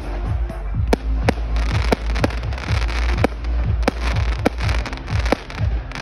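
Aerial fireworks shells bursting overhead in a rapid series of sharp bangs, about two a second. A dense hiss fills the gaps between the bangs from about two seconds in.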